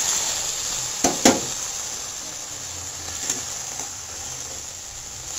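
Freshly added vegetables (drumstick pieces, okra, potato) sizzling in hot mustard oil in a steel pan, the hiss slowly easing off. A steel spatula clicks sharply against the pan twice about a second in, and once more lightly near three seconds.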